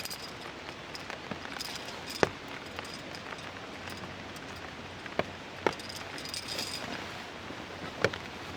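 Steady rain falling, with a few heavy drops landing sharply, four times.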